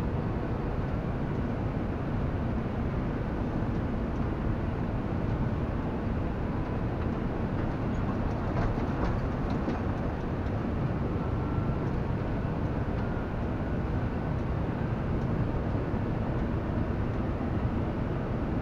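John Deere tractor running steadily under load, heard from inside its cab, as it pulls a round baler working along a windrow of hay.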